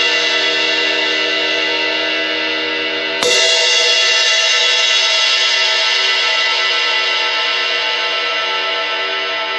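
Paiste Alpha 20-inch Power Ride cymbal ringing on from an earlier hit, struck once more about three seconds in, then left to ring with a long, slowly fading wash of overtones.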